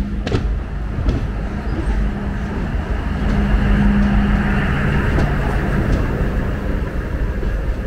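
Local passenger multiple-unit train passing close on the adjacent track: a steady rumble of wheels on rail, with a few sharp wheel clicks near the start. A steady hum swells to its loudest about halfway through as the front power coach goes by.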